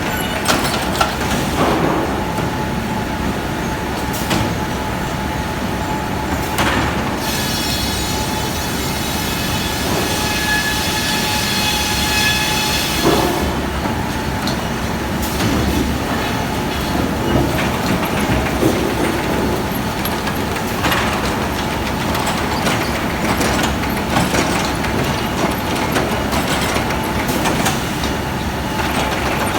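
Sawmill machinery running steadily, with a high whine made of many tones from about seven to thirteen seconds in, and occasional knocks.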